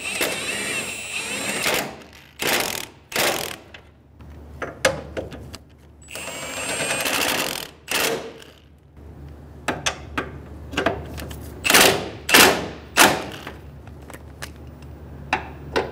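Cordless power tool whirring in two runs of about two seconds each, at the start and about six seconds in, spinning down the engine mount's base bolts. Sharp clacks and knocks of tools and sockets come between the runs and cluster near the end.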